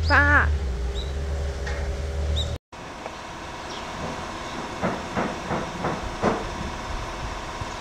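A goat bleats once, a short wavering call, over a low rumble. After a cut, there is a steady faint hum with a few brief, quieter sounds.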